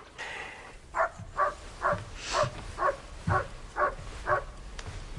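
A dog barking: a regular run of eight short barks, about two a second.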